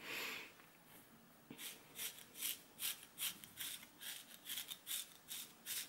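Pill comb scraping over a hand-knit wool sock to strip off pills and fuzz: short, faint, scratchy strokes at about three a second, starting a second and a half in.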